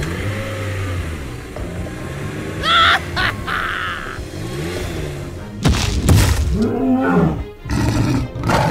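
Background music, with a dinosaur roar sound effect over it from a little past halfway.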